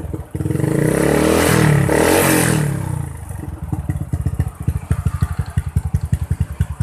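Honda Supra X 125's single-cylinder four-stroke engine, stock but with a PE28 carburettor, breathing through an R9 aftermarket exhaust. The revs rise and fall back over about the first three seconds, then the engine settles into an idle with a steady, rhythmic putter from the exhaust.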